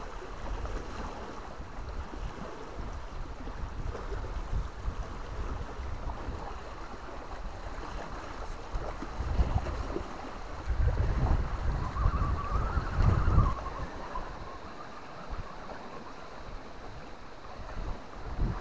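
Wind buffeting the microphone, with gusty low rumbles about halfway through and again later. A faint whine rises and falls during the second rumble: the RC crawler's small electric motor as it creeps up the rock.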